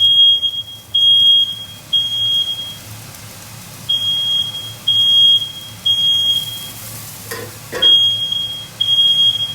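Smoke alarm sounding in the temporal-three pattern: three loud, high-pitched beeps about a second apart, a short pause, then three more, repeating over a steady low hum. It was set off by fumes from cooking salmon, not by fire or burnt food. A couple of soft knocks come just before the last group of beeps.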